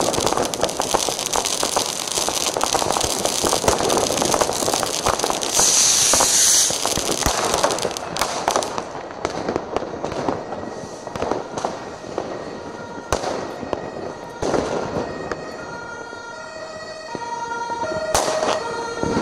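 New Year's Eve fireworks: dense crackling and banging from rockets and firecrackers, with a loud hiss about six seconds in. The bangs thin out in the second half, and near the end a run of held notes at changing pitches comes in.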